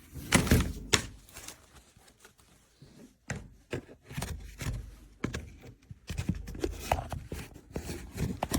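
Irregular clicks, knocks and rustles of small chainsaw parts being handled while spring clips are pressed into their holes, with two louder knocks about half a second and a second in.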